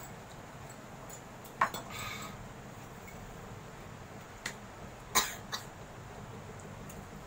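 A few short coughs from someone eating extremely spicy fire noodles, the sharpest about a second and a half in and just past five seconds, with smaller ones between: a reaction to the chili heat.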